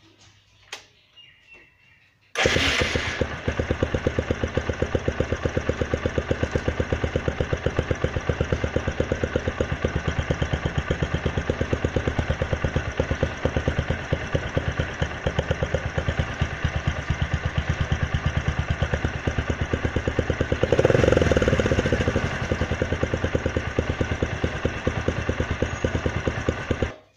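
Motorcycle engine starting about two seconds in and idling with rapid, even exhaust pulses. The exhaust fires into a rusty tin can held at the silencer outlet, a homemade trick to make the bike sound like a KTM. The engine is briefly revved near the end, then cuts off suddenly.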